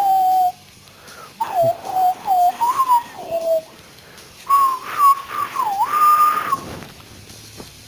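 A person whistling a melody, in three short phrases with brief pauses between them; the pitch steps and slides from note to note.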